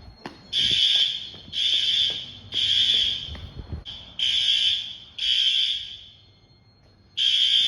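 Fire alarm horns sounding in harsh, high-pitched half-second blasts about once a second, in groups with longer pauses between them, as the building's fire alarm system is set off for testing.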